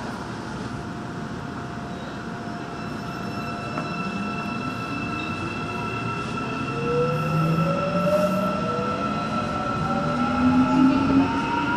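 Daegu Metro Line 2 electric train pulling away from a station: a steady electric whine, then from about four seconds in the traction motors' whine rising steadily in pitch and getting louder as the train accelerates.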